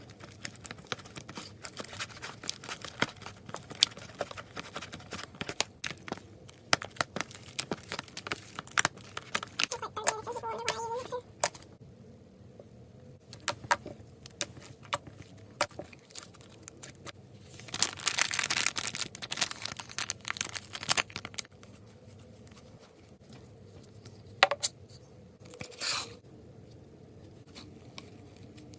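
Slime being worked by hand, with quick crackling clicks and pops, a brief squeak about a third of the way in, and a denser crinkling stretch a little past the middle.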